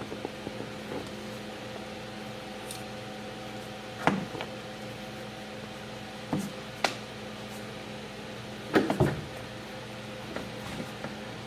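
Ragdoll mother cat licking and cleaning her newborn kitten: a few short, scattered licking and rustling sounds, the loudest about nine seconds in, over a steady background hum.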